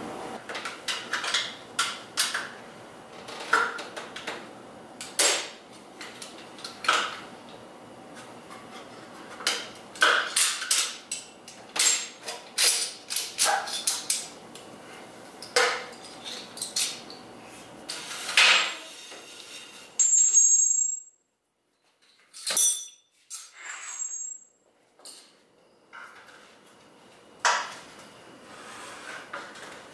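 Hand tools and metal motorcycle parts clinking and knocking in a run of separate clicks and clanks as the front brake calipers and front-end parts are fitted back on. There is a short near-silent break about two-thirds of the way through.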